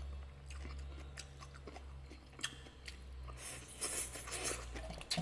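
A person eating with chopsticks: chewing and crunching noodles and shredded cabbage, with scattered small mouth clicks and a hissing slurp about three and a half seconds in. A steady low hum runs underneath.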